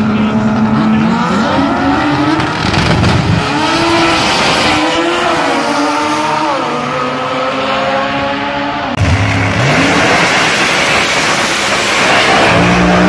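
Top Fuel dragster engines running loud, their pitch holding steady and then rising and falling as they rev. About nine seconds in the sound cuts abruptly to a louder, rougher run in which an engine's pitch rises.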